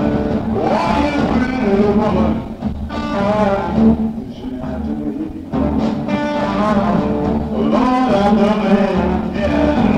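Live slow blues-rock trio: an electric guitar playing blues fills with bent, sliding notes between sung lines, over bass and drums.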